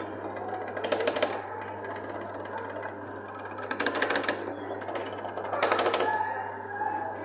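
Three short bursts of very rapid rattling clicks, each about half a second long, from an RG Mitchell mini Thomas the Tank Engine kiddie ride as the buttons on its panel are pressed, over a steady low hum.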